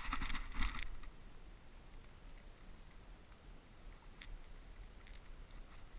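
A burst of rustling and brushing in tall dry marsh grass and clothing, less than a second long, as a person swings round quickly; after it only faint scattered rustles and ticks. No shot is fired.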